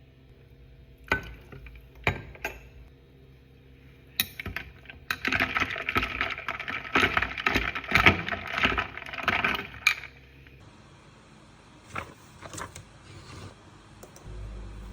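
Small hard objects being handled: a few separate knocks, then about five seconds of continuous clinking rattle, then a few lighter knocks.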